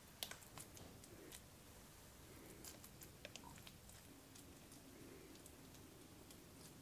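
Faint clicks and soft squishing of a metal spoon dropping egg salad onto a slice of brioche bread and spreading it, with most of the light clicks in the first few seconds.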